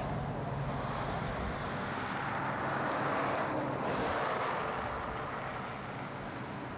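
A 4x4 truck's engine running steadily under a rushing noise.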